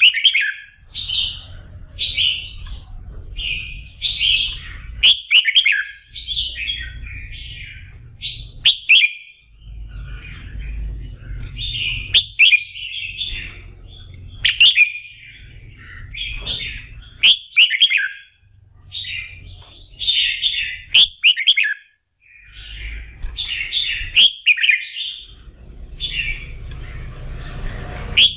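Red-whiskered bulbul singing: short, bright warbled phrases repeated about every second, with sharp clicks among them and a low rumble underneath at times.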